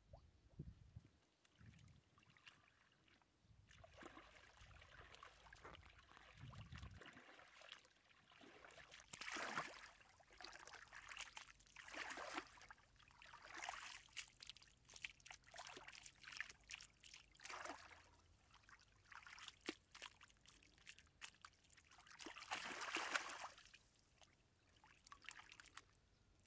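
Hands scooping and slapping wet mud in shallow water: quiet, irregular splashing, sloshing and trickling, with a few louder splashes spread through.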